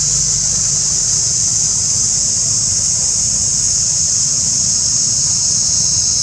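Steady, high-pitched drone of a forest insect chorus, unbroken and unchanging, over a low steady rumble.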